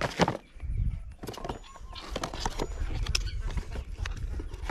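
Packaging being handled as parts are lifted out of a foam-lined cardboard box: a couple of sharp knocks at the start, then scattered clicks, scrapes and rustling over a low rumble.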